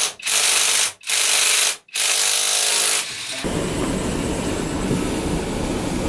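Three loud bursts of hissing, each about a second long with short breaks between them. Then a steady, lower rumbling noise takes over.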